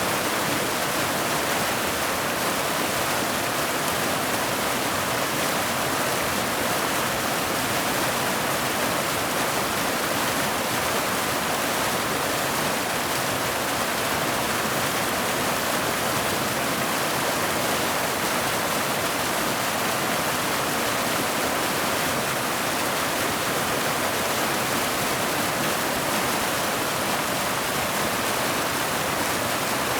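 Mountain waterfall: water cascading over boulders into a pool, a steady, even rushing hiss with no breaks or changes.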